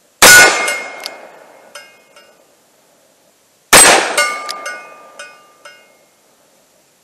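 Ported Taurus Model 608 .357 Magnum revolver fired twice in single action with 158-grain full metal jacket Magnum loads, the shots about three and a half seconds apart. Each shot is followed by a ringing steel target and a few fainter pings over the next second or two.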